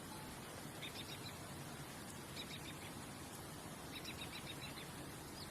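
A bird chirping in three short runs of quick, high notes over a steady background hiss.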